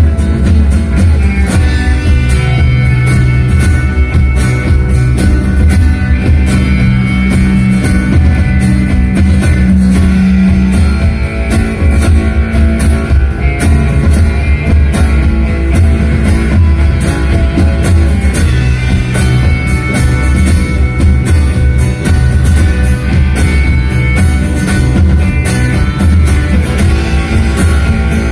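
A live rock band playing loudly, with electric and acoustic guitars, bass and a drum kit keeping a steady beat.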